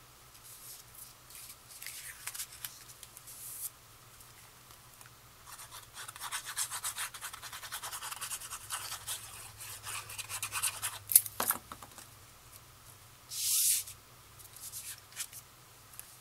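Cardstock handling: the applicator tip of a liquid glue bottle scratching back and forth over cardstock in a dense run of quick strokes around the middle, among scattered paper scrapes. A sharp tap, then a short rush of paper sliding, near the end.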